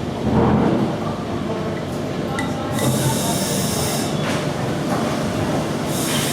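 Escher Wyss steam engine of a paddle steamer running, with steady churning and clanking machinery noise. Bursts of steam hiss come in twice, in the middle and near the end.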